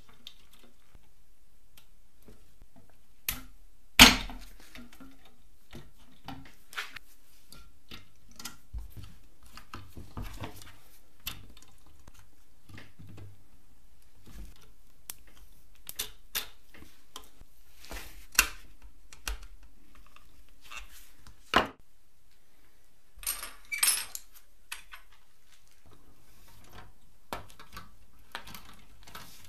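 Small metal and plastic parts of a toy car clicking and knocking as its axles and wheels are fitted by hand with pliers. Irregular light clicks throughout, with one sharp knock about 4 s in and a brief cluster of rattling clicks past the middle.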